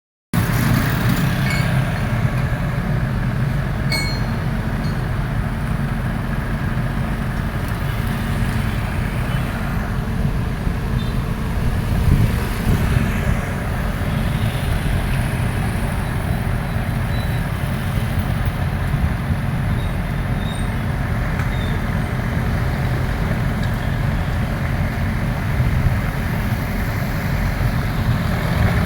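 Excavator's diesel engine running steadily with a heavy low drone, with a couple of light clinks about four seconds in.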